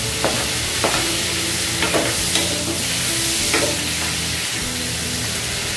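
Diced tomatoes, garlic and onions sizzling steadily in butter and oil in a frying pan, with a spatula scraping and knocking against the pan several times as they are stirred.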